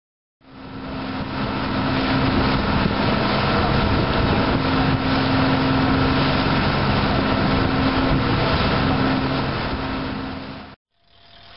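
A fishing boat running under way: a steady engine hum beneath loud rushing water from the wake churning along the hull. It starts about half a second in and cuts off abruptly near the end, followed by a quieter, steadier engine hum.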